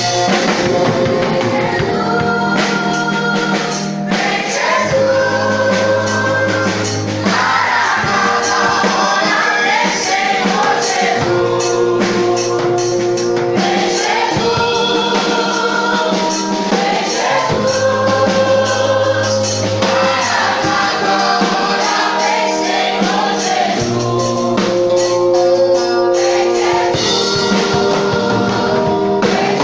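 Gospel song playing, with choir singing over a band with bass and percussion.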